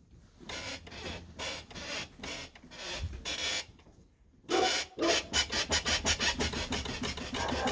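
Nissan NP300 (D22) pickup's front suspension creaking as the truck is rocked. Slow, evenly spaced creaks give way after a short pause to quicker ones, several a second. The uploader traces the creak to a dry upper-left ball joint with a couple of millimetres of play.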